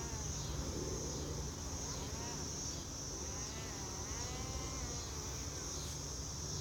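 Distant buzz of the Parrot Disco drone's electric motor and propeller in flight, its pitch wavering up and down, over a steady high-pitched hiss.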